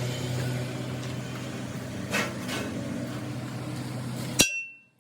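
Steady background noise with two light knocks about two seconds in, then the background cuts off suddenly near the end and a sharp metallic ding with a high ringing tail sounds, followed by another right at the end.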